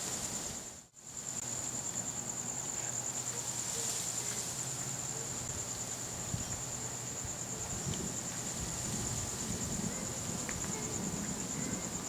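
Crickets chirping in a steady night chorus, a continuous high pulsing trill, which briefly cuts out about a second in.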